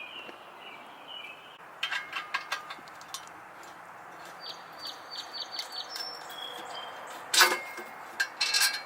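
Hand tools on exhaust header bolts: metal clinks, a ratchet wrench ticking in a quick even run partway through, and a louder metallic clank followed by clatter near the end.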